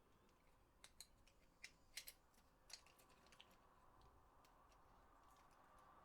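Faint, light clicks and taps of plastic controller parts being handled, a quick irregular run of about a dozen clicks in the first half, then only faint room hum.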